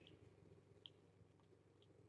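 Near silence, with a few faint soft clicks of kittens chewing and smacking wet food.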